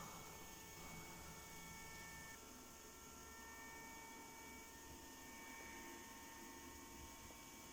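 Near silence: a faint steady electrical hum over low hiss.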